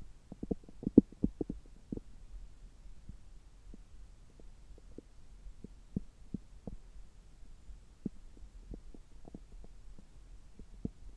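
Bowel sounds picked up through a stethoscope pressed on the belly: a quick run of small gurgling pops in the first two seconds, then scattered single pops at uneven intervals, over a low steady hum.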